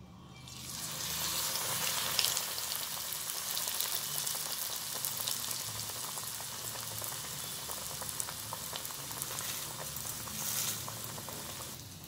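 A vermicelli-coated potato ball deep-frying in hot oil, sizzling and crackling steadily. The sizzle swells up within the first second as it goes into the oil and drops away near the end.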